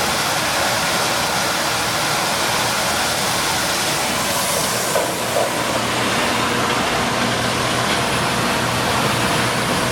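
Maize milling machine running, a steady mechanical noise with a low hum, with two brief knocks about halfway through.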